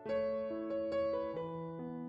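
Background piano music: a chord struck at the start, then single notes following one another every half second or so.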